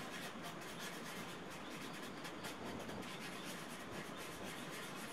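Small putty knife scraping wood filler into holes in a block of wood: faint, repeated scraping strokes.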